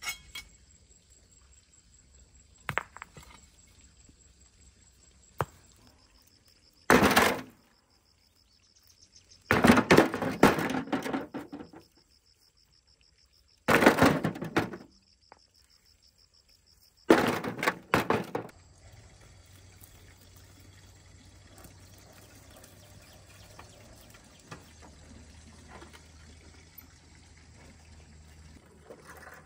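Heavy stones dropped into a metal wheelbarrow tray, four loud crashing bursts over the first two thirds, the second one a quick run of several stones. After that only a quiet, steady low rumble.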